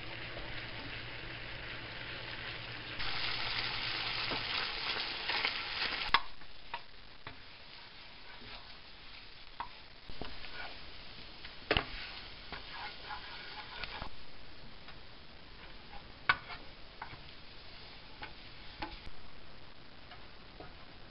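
Coconut milk sizzling in a frying pan as it cooks down to browned curds, stirred with a wooden spoon. The sizzling is loudest for a few seconds early on and ends in a sharp knock; after that come scattered scrapes and taps of the spoon against the pan.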